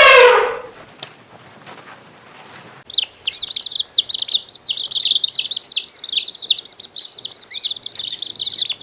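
Small birds chirping, a fast run of short high chirps several per second that starts about three seconds in after a brief quiet gap. At the very start the tail of a loud pitched animal call dies away.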